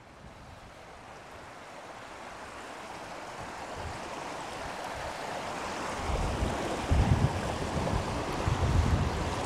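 Outdoor wind and rushing water as a steady noise that grows louder, with gusts of wind buffeting the microphone from about six seconds in.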